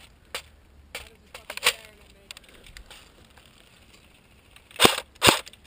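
A few light plastic clicks and clacks as an airsoft magazine is handled, then a CYMA CM.028 AK47 electric airsoft rifle (AEG) fires twice, about half a second apart, near the end.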